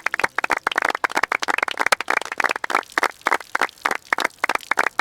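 Hand clapping by a few people: quick, irregular claps that come a little more sparsely near the end.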